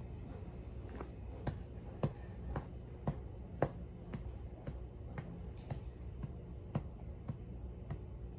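A steady light clicking, about two clicks a second, over a low hum, stopping abruptly at the end.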